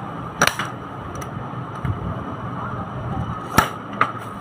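Plastic-and-metal clacks from a baby walker being handled as its height-adjustable seat frame is pushed down: three sharp clicks, the loudest about three and a half seconds in, with a softer knock between, over a steady background hum.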